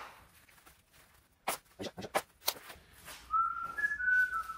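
A few sharp clicks and knocks of hand tools, then a person whistling a short tune whose notes step downward over the last second and a half.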